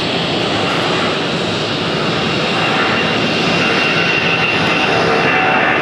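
Boeing 757-200's twin jet engines at takeoff thrust during the takeoff roll: a steady loud rush with a high whine that grows stronger and slightly louder as the jet accelerates.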